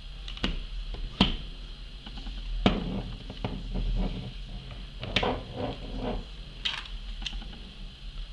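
Light clicks and taps of a CO2 airsoft pistol's metal and plastic parts being handled while a Phillips screwdriver works on its hammer screws, about six separate sharp clicks spread out.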